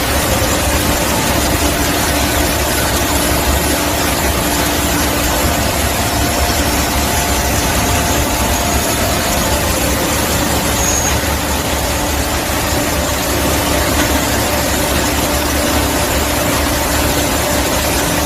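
Chip cleaner for machine-tool coolant tanks (an industrial vacuum unit) running steadily, a continuous motor drone with a hiss and a few faint steady tones, no change in level.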